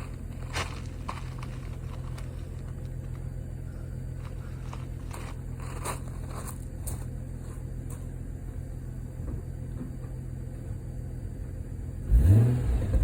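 Mercedes-Benz W211 E320 engine idling steadily through its stock exhaust, still warming up after a cold start, with a few light clicks. Near the end it gets one short throttle blip: the engine note rises and falls back.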